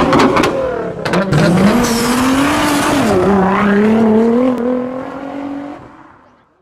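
Sound effect of a race car engine revving: a few sharp cracks in the first second and a half, then the engine note climbs, dips about halfway through, holds steady and fades out near the end.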